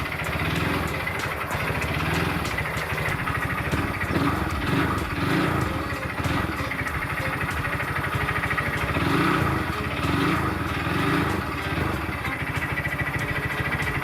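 Bored-up Honda Grom's single-cylinder engine running on test, revved up and back down several times, with new cam chain parts fitted to chase down an abnormal engine noise.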